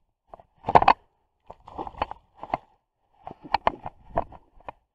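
Irregular short knocks and clatters in quick clusters, the loudest about a second in.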